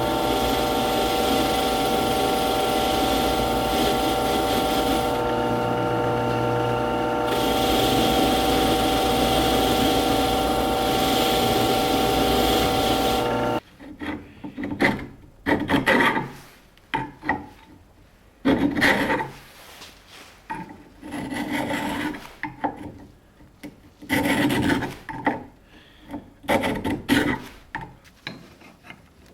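A power grinder runs steadily on the knife steel with a constant pitched hum, then cuts off suddenly about halfway through. After it come irregular separate rasping strokes, a hand file working the blade's tang.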